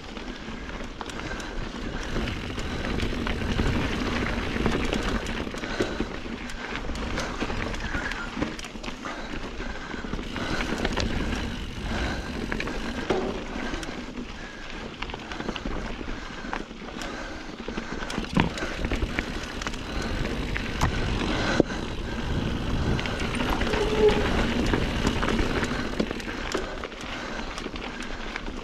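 Norco Sight A2 full-suspension mountain bike ridden along a rocky dirt singletrack: tyres rolling and crunching over dirt and rocks, with the bike rattling and sharp knocks from hits here and there.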